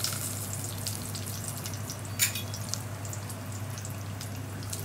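Cashews and almonds frying gently in ghee in a steel pot on the lowest flame: a soft, steady sizzle with scattered small crackles and one sharper click about two seconds in.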